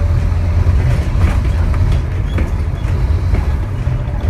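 Scania N230UD double-decker bus's five-cylinder diesel engine pulling under load on a hill climb: a loud, steady low drone, with a few short clicks and rattles over it.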